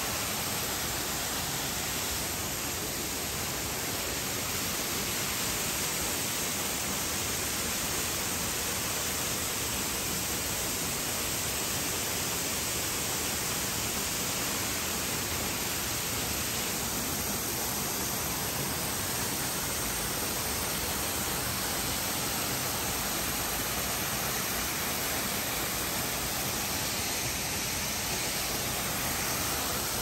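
Mantayupan Falls, a tall waterfall, pouring into its pool: a steady, even rush of falling water.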